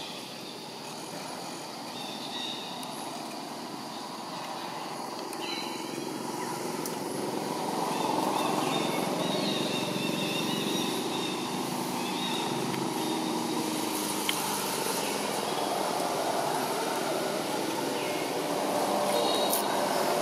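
Motor traffic: a steady engine rumble that grows louder about eight seconds in and holds there, with a few faint high chirps over it.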